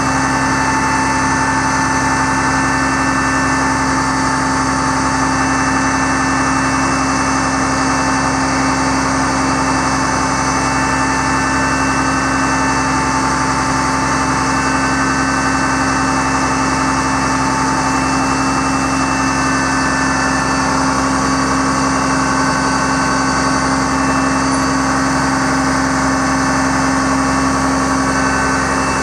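Caterpillar C7 diesel engine of a Freightliner M2 bucket truck idling steadily while the aerial boom is raised, a constant engine hum with steady tones over it and no change in speed.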